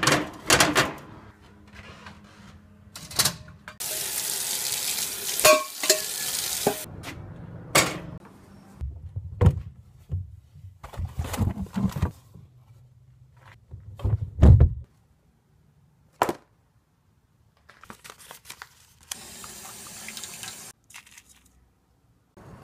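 A string of household kitchen sounds: sharp knocks and heavy thumps, with two stretches of steady rushing noise, the later one a kitchen tap running into a bowl in a stainless sink. Short silent gaps fall between the pieces.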